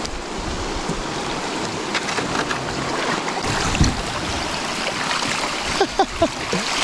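Shallow river water rushing over a rocky spill in a narrow channel, heard from a kayak running through it, with scattered splashes and knocks from the paddle and hull. A few short sharp sounds come about six seconds in.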